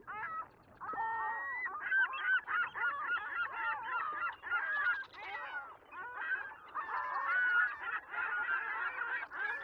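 A penguin colony calling: many birds' calls overlapping in a dense, continuous chorus of short rising and falling cries.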